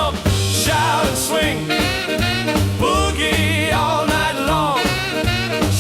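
Jump-blues band music in an instrumental break: a bass line under a lead instrument whose notes bend and waver.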